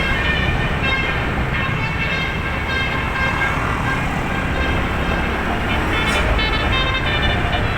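Telolet basuri bus horn playing a tune of short high notes that step from pitch to pitch, over steady engine and road noise.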